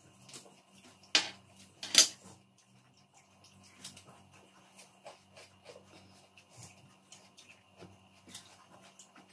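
Watermelon being eaten up close: wet bites and chewing with small scattered clicks of fruit and plate handling, and two louder sharp sounds about one and two seconds in.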